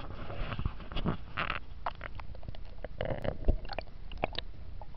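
Muffled splashing and gurgling of river water with irregular knocks and clicks close to the microphone, as the camera is dipped into the water beside a hooked redfin perch.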